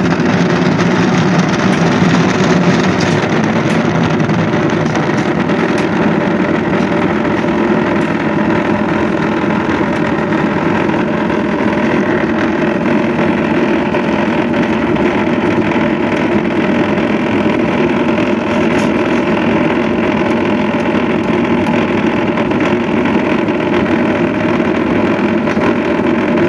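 Engine of concrete-pouring machinery running at a steady, unchanging speed.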